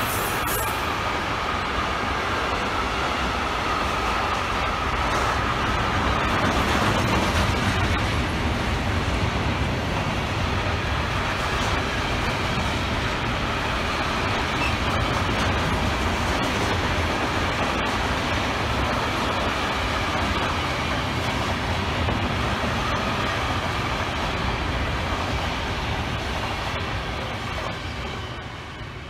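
Container freight train's wagons rolling past on the rails, a steady rumble of wheels with a faint high whine; the noise falls away near the end as the last wagons go by.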